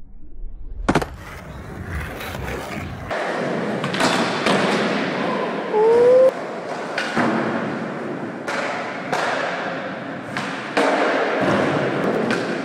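Skateboard tricks: a loud clack as a kickflip lands on asphalt about a second in, then skateboard wheels rolling on a smooth concrete floor with repeated clacks of tail pops and landings.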